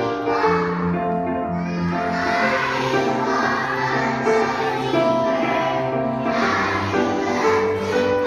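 Music with a high singing voice over held, steady instrumental notes.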